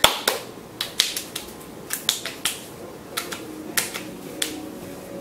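Hands patting and slapping sunscreen onto the face: an irregular run of sharp skin slaps that thins out toward the end.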